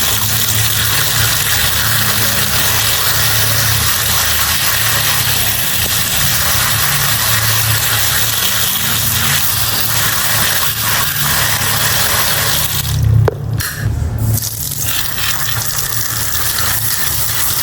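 Water spraying from a small motor-driven sprayer: a steady hiss over a low motor hum, with the spray stopping for about a second near the end.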